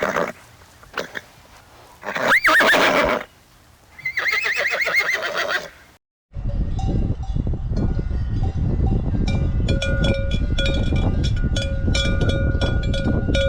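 A horse whinnying twice: one call rising and falling in pitch, then a longer quavering one. About six seconds in, after a short break, a steady low rushing noise with faint held tones and rapid ticking takes over.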